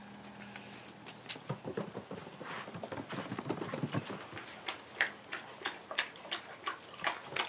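Great Dane puppies' paws and claws pattering and tapping on wooden boards and concrete as they scuffle, with a string of sharp taps in the second half.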